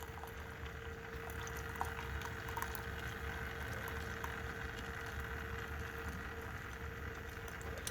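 Chulux single-serve K-cup coffee maker brewing: hot coffee streaming into the cup, over a steady hum from the machine.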